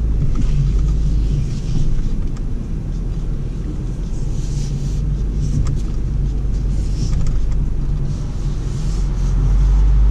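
BMW X4 M40i's turbocharged inline-six running at low revs as the SUV creeps along a dirt trail, heard inside the cabin as a steady low rumble. Scattered faint crackles and rustles sound over it.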